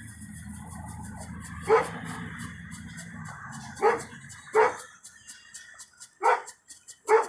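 A dog barking five times, single sharp barks spaced one to two seconds apart, over a low steady hum that fades out about halfway through.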